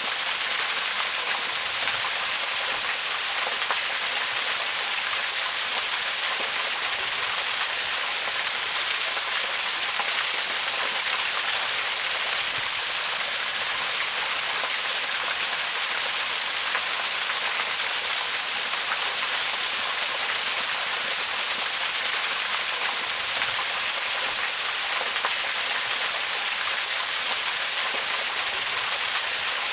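Waterfall: a steady, unbroken rush of falling water, mostly a bright hiss with little low rumble.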